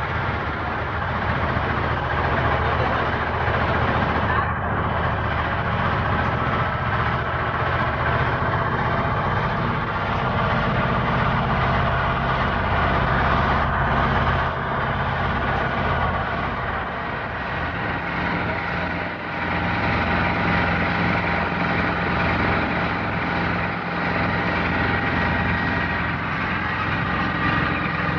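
Small boat's engine running steadily while under way, with a steady hiss over it.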